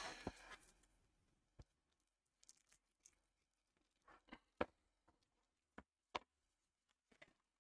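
Faint, scattered crinkles and crackles of clear plastic shrink wrap being handled and peeled off a packaged item, with near silence between them.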